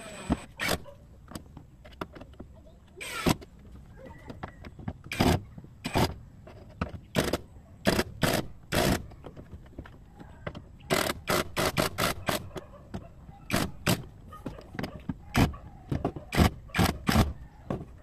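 Irregular sharp clicks and knocks, with quick runs of them about eleven and sixteen seconds in, from a screwdriver and fingers working on the plastic drain valve and drain motor linkage of an automatic washing machine.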